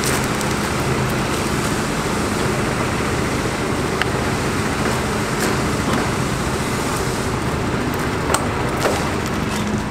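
International DT466 diesel engine of a 1988 International S1900 water truck idling steadily. A few sharp clicks and knocks come about four seconds in and again near the end, as the tilt hood is unlatched and swung open.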